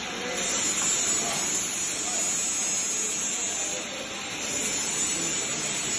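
TIG (GTAW) welding arc on 2-inch pipe: a steady high hiss that dips briefly about four seconds in.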